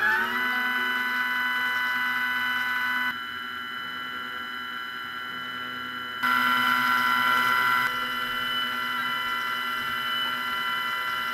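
Stepper motor driving a homemade circular camera slider, running with a steady whine of several tones that settles just after ramping up in pitch. The whine drops in loudness about three seconds in and comes back louder about three seconds later.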